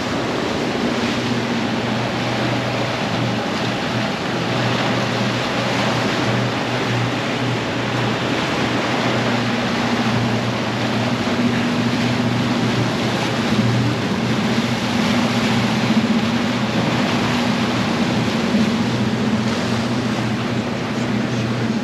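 Wake water rushing and churning along a boat's hull over the steady hum of twin Mercury Verado V8 outboards at trolling speed. The engine hum grows a little stronger about halfway through.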